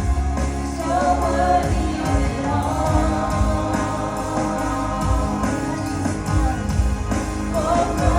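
Live gospel worship music: a band with bass and drums playing under sung voices, with no clear words.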